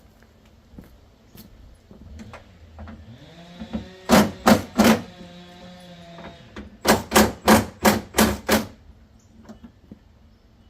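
Impact wrench working the hood hinge bolts: its motor spins up with a rising whine, then it hammers in short rattling bursts, three together near the middle and six more a couple of seconds later.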